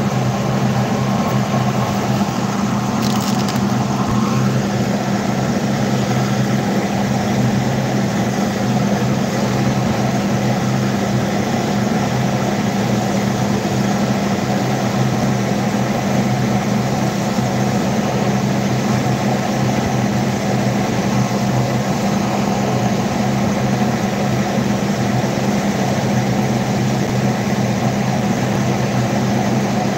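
Steady mechanical hum of a running kitchen appliance, a constant low drone with no change in level, and one brief sharp click about three seconds in.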